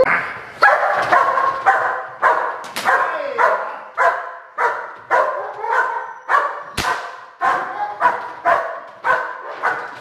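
A young German Shepherd barking steadily, about two barks a second, at a trainer who is agitating it in protection work. Two sharp cracks come between the barks, the louder about two-thirds of the way through.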